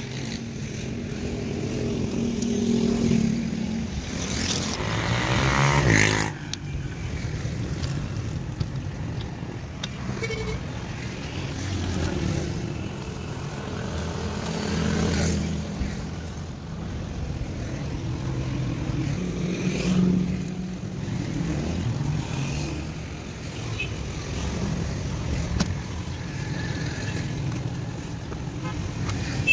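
Steady rumble of road traffic with passing engines; one vehicle's engine rises in pitch and peaks about five or six seconds in.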